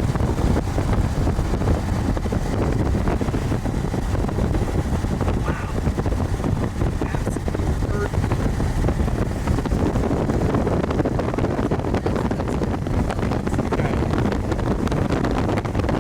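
Strong wind blowing over the microphone with a vehicle running underneath, a steady rushing noise with no let-up.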